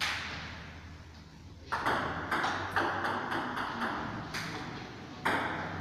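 Table tennis rally: a celluloid ball struck by rubber-faced paddles and bouncing on the table, a quick run of sharp pocks. One hit at the very start, then a brisk exchange from about two seconds in.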